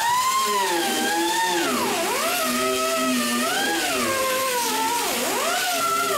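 Handheld high-speed rotary tool cutting into a fiberglass trunk lid, its motor whine sagging in pitch as it loads and climbing back as it frees up, with deep dips about two and five seconds in.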